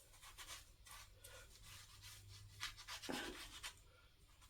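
Faint rubbing and scratching of minoxidil foam being massaged into hair and beard, a little louder about three seconds in.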